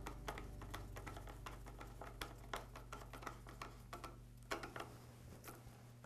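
Screwdriver driving a screw into a trimmer's recoil starter housing: a run of light, irregular clicks and ticks. A faint low hum underneath drops away about two-thirds of the way in.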